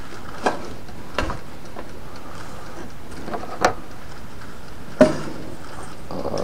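Four sharp, irregularly spaced clicks over a steady low hiss, from a Mainstays toaster oven's metal body ticking as it heats with its top broil element on.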